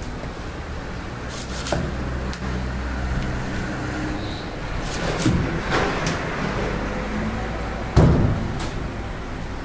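A broad fish-cutting knife knocking and scraping against a large fish and a wooden chopping block, a few scattered knocks with one heavy thump near the end, over a steady low hum.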